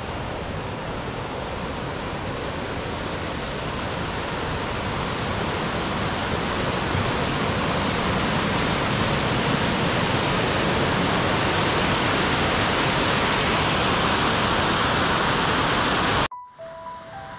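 Rushing water: a steady, even rush that grows gradually louder and is cut off suddenly near the end, where soft piano music begins.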